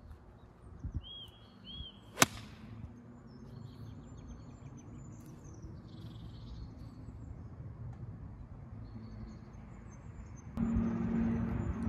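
A golf iron striking the ball once, a single sharp crack about two seconds in, with small birds chirping in the background. Near the end a louder low steady hum comes in.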